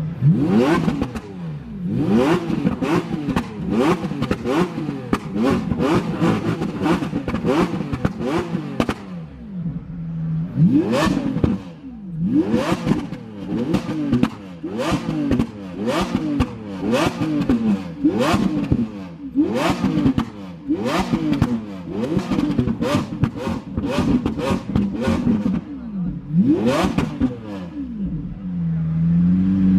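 Lamborghini Aventador LP700-4's V12 engine revved repeatedly while standing still, quick throttle blips one after another, each rising and falling in pitch. It settles briefly to idle about nine seconds in and again near the end.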